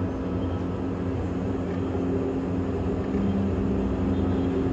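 Steady low mechanical hum with a rumble underneath, holding at an even level throughout.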